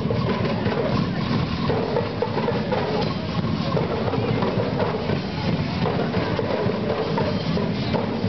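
Marching drum corps playing marching snare drums in a steady parade rhythm as it passes.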